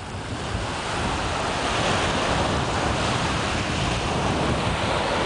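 Small Atlantic waves breaking and washing up a sandy beach in a steady surf hiss. Wind buffets the microphone with a low rumble.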